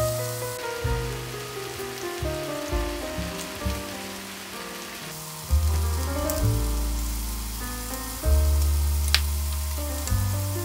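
Pork belly sizzling on a hot grill plate under background music, with a sharp metallic click near the end.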